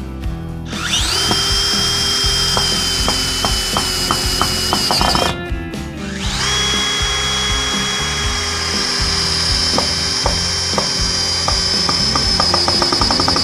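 Power drill driving screws into wood in two runs, about four and seven seconds long, with a steady high motor whine. Sharp clicks that come faster near the end of each run are the sound of a worn driver bit slipping in the screw heads.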